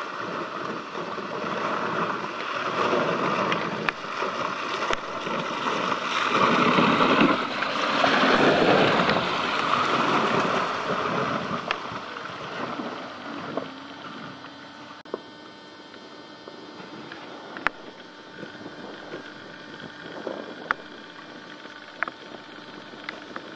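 Subaru Forester XT crawling through muddy, water-filled ruts, its tyres churning and splashing through the mud. Loudest about six to eleven seconds in, then quieter, with scattered sharp clicks.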